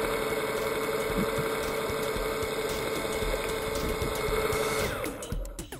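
Seadoo Aqua Ranger sea scooter's electric motor and propeller running underwater with a steady whine. About five seconds in, the pitch falls and the sound breaks up as the motor slows, its battery running low.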